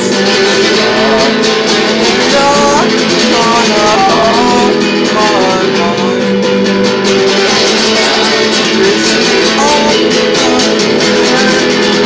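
Guitar played by hand, chords ringing steadily, with a man singing along over it in the first half and again near the end.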